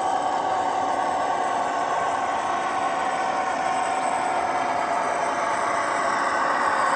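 HO-scale model Metra commuter train running, with steady train sound played through the sound decoder's small speaker; it grows a little louder near the end.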